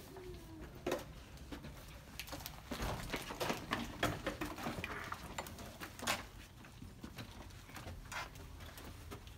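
Irregular knocks and sharp clicks of people moving with luggage through a room doorway: footsteps and bags and a suitcase bumping, busiest a few seconds in, over a low room hum.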